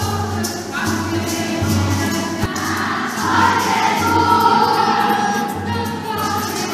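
A group of children singing a lively song together over backing music.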